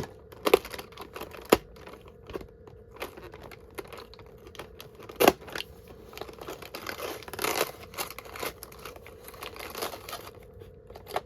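Advent calendar packaging being torn open and crinkled by hand as a craft die is unwrapped, with scattered sharp clicks and taps and longer stretches of rustling near the middle.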